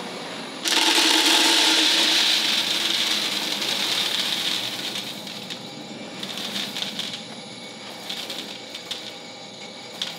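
Green coffee beans being poured into a container: a sudden dense rush of clatter starts under a second in and fades over about four seconds. Scattered light clicks of single beans follow.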